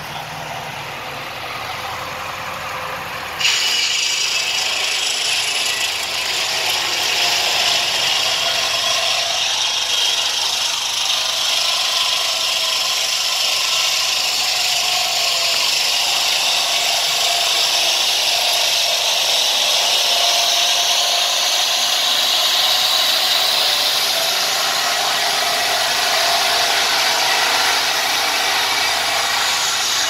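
Horizontal band sawmill cutting a log: the blade's steady, loud high-pitched hiss in the wood starts abruptly about three and a half seconds in and holds, after a quieter run of the saw.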